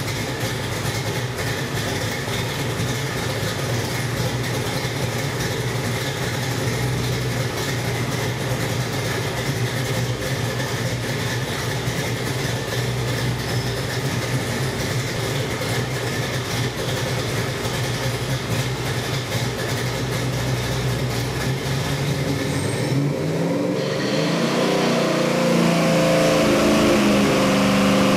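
Ford 427 Windsor stroker small-block V8, carbureted with a hydraulic roller cam, running on an engine dyno: it idles steadily, then about 23 seconds in the revs begin a steady climb as the loaded dyno pull starts, growing a little louder.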